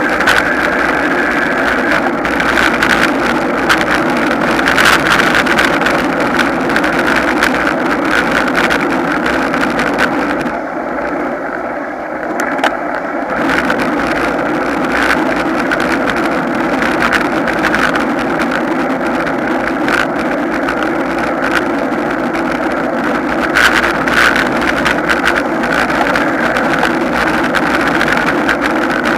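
Steady rush of wind and road noise on a camera riding on a racing bicycle in a moving pack. For about three seconds near the middle the sound turns muffled and slightly quieter.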